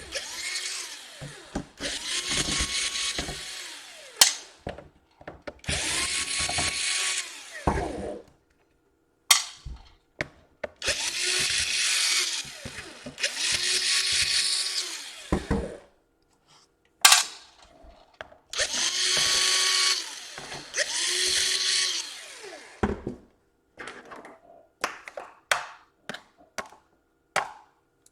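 Small cordless electric screwdriver whirring in about seven short runs, each spinning up, holding and winding down, while backing out laptop case screws. A string of light clicks and taps follows near the end.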